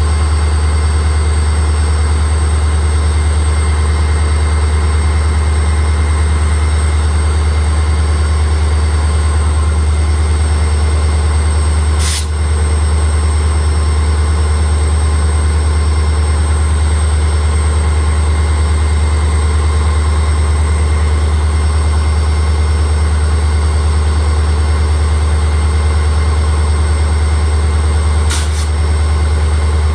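WDP-4 (EMD GT46PAC) locomotive's 16-cylinder EMD 710G3B two-stroke diesel engine running steadily with a deep hum and a thin high whine above it. There is a brief break in the sound twice.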